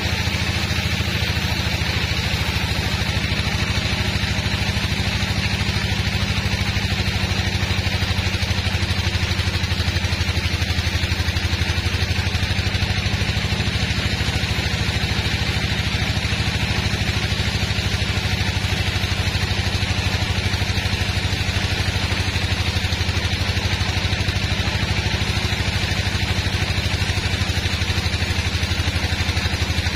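Band sawmill running steadily as its blade cuts through a large log, with a constant low engine-like hum under the hiss of the cut.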